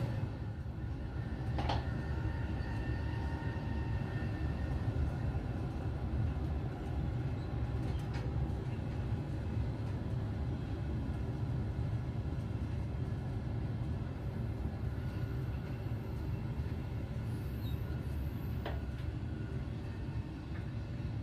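Regional passenger train running along the track, heard from inside the carriage: a steady low rumble of wheels and running gear, with a few faint clicks.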